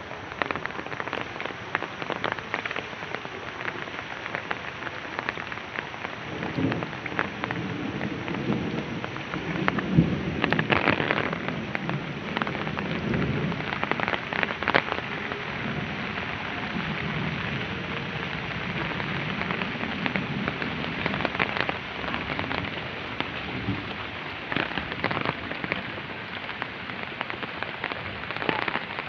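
Rain falling steadily, with many sharp drop hits close by. Low rumbling swells come and go through the middle of the stretch.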